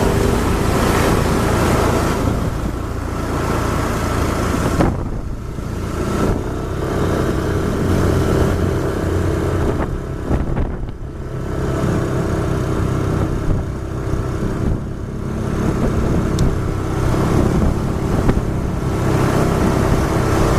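Engine hum and road and wind noise from a moving vehicle at speed, steady apart from two brief dips partway through.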